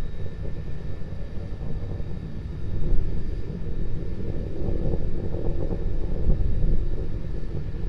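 Low, crackling rumble of Starship SN9's Raptor engines firing as the rocket climbs on two engines, with wind noise on the microphone.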